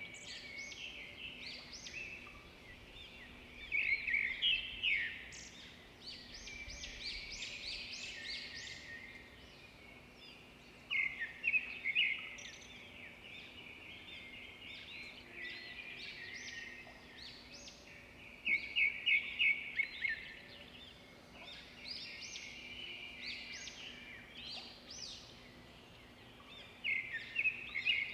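Small birds chirping and singing, with louder bursts of rapid repeated notes every several seconds; a faint steady hum underneath.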